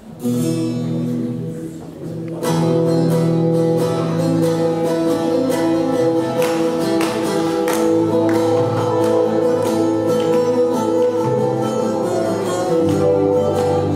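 Turkish folk music ensemble playing an instrumental introduction led by bağlamas, with plucked strings over held notes. A short, quieter opening phrase comes first, and the full ensemble comes in about two and a half seconds in.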